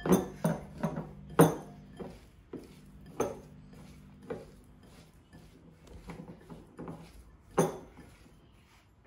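Spoon and small glass bowl clinking and knocking against a glass mixing bowl as chopped red onion is scraped into mashed potato, then softer knocks as it is mixed in by hand. The sharp knocks are thickest in the first second and a half, with one more loud knock near the end.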